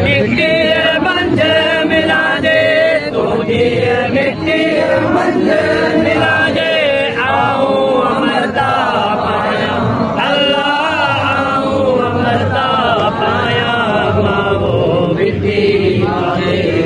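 A crowd of men chanting together in a sung, drawn-out style, many voices overlapping without a break.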